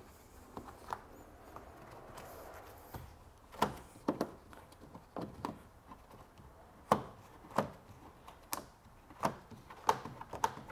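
Irregular soft knocks and clicks as a gloved hand presses the rubber seal onto the edge of a Porsche 981 Cayman's engine-compartment opening, about a dozen, sparse at first and more frequent from about three seconds in.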